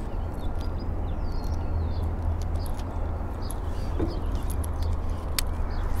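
Wind rumbling on the microphone, with faint bird chirps and a single sharp click about five seconds in.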